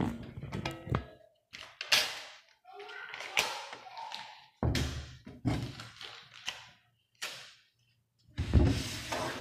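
A fist pounding a table covered in torn colouring-page scraps, with several heavy thumps. Between the thumps come short bursts of paper rustling and tearing.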